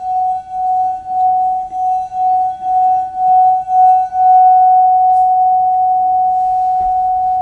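Tibetan ritual bell (ghanta) ringing one high, pure tone that swells and fades about twice a second. About four seconds in it rings on steadily and slowly dies away.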